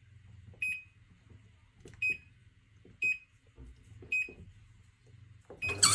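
Top-loading washing machine's control panel beeping as its buttons are pressed: four short high beeps about a second apart, over a faint low hum.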